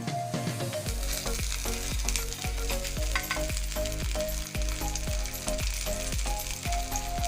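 Dosa batter frying in ghee on a hot griddle, sizzling steadily.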